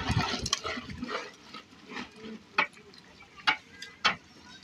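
Long-handled metal ladle stirring and scraping through thick mutton curry in a large aluminium cooking pot, then three sharp knocks, about a second apart.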